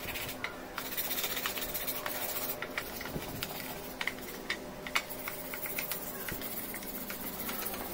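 Hand-sanding a wooden scout knife: sandpaper rubbed quickly back and forth over the wood in a dry, scratchy hiss that rises and falls with the strokes, with a few small clicks and taps.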